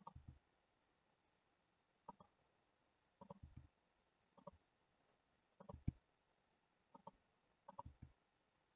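Faint clicks of a computer mouse, single or in quick pairs, about every one to two seconds.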